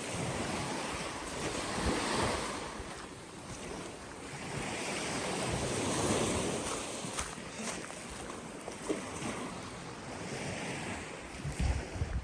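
Small sea waves washing onto the shore, the rush swelling and fading every few seconds, with some wind buffeting the microphone.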